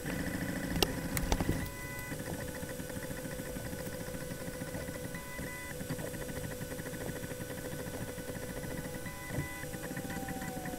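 Snapmaker 2.0 3D printer's stepper motors running with a fast fine ticking as the dual extrusion toolhead prints a calibration pattern on the bed. A few sharp clicks come in the first couple of seconds.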